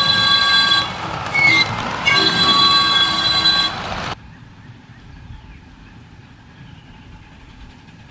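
Live-steam locomotive's whistle sounding several notes at once: a long blast, a short break with two quick toots, then another long blast that stops abruptly about four seconds in. After that only a faint steady background remains.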